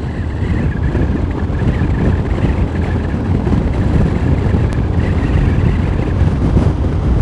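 Strong wind buffeting the microphone of a moving motorcycle, a steady low rumble with the engine running underneath.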